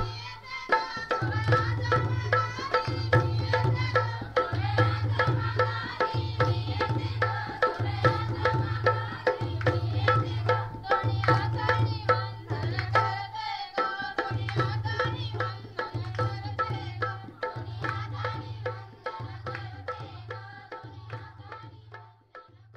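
Traditional folk dance-song: a hand-played barrel drum (dholki) keeps a steady beat of about one heavy stroke a second with quicker strokes between, under group singing. It cuts off suddenly near the end.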